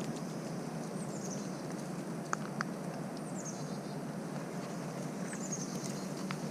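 Steady rush of flowing creek water, with a bird calling three times in short high notes that fall in pitch. Two faint clicks come in about two and a half seconds in.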